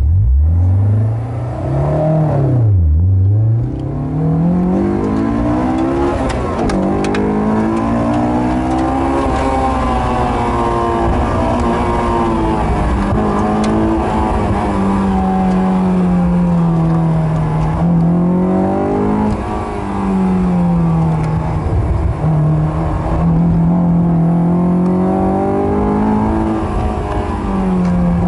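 Sports car engine launching hard, its revs climbing steeply, then dropping sharply at an upshift about three seconds in. Afterwards the revs rise and fall repeatedly as the car accelerates and lifts off between cones on an autocross course.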